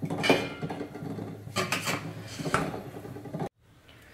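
Stainless-steel idiyappam steamer plates clinking and knocking as they are set onto the steamer's central rod: a few sharp metallic knocks over a low steady hum, cut off suddenly near the end.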